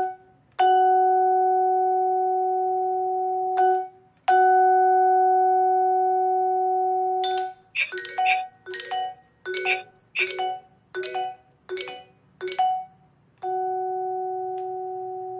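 Vibraphone struck with yarn mallets. Two long ringing notes at the same pitches come first, then a quick run of about nine short notes, each cut off soon after it is struck. Near the end another long note rings and slowly fades.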